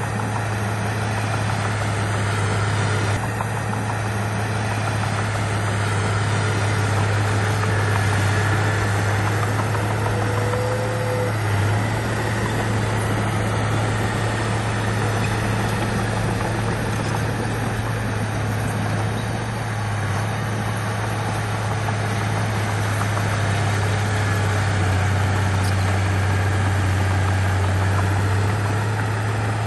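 Heavy earthmoving machine's diesel engine running steadily with a constant low hum.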